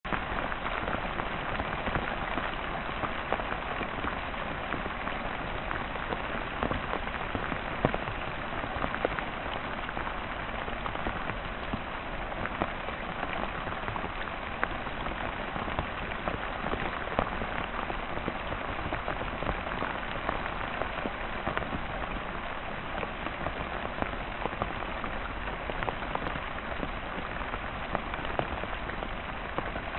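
Heavy rain pouring down steadily, a dense even hiss of rainfall with many sharp individual drop hits scattered through it.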